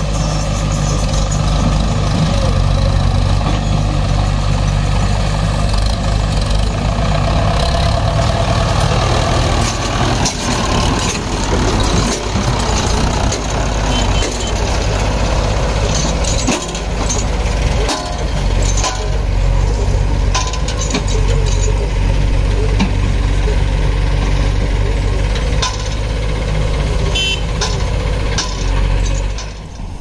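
Diesel engines of a JCB 3DX backhoe loader and a Mahindra tractor running steadily while the backhoe loads soil into the tractor's trolley; around ten seconds in the sound turns rougher and more mixed.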